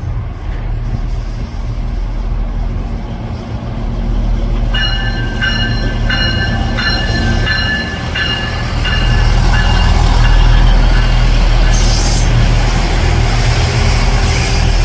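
Union-Pearson Express diesel multiple unit passing close by: a steady low rumble of its engines and wheels on the rails. From about five seconds in come a run of evenly spaced clicks with a high wheel squeal, then the sound swells louder as the cars go past.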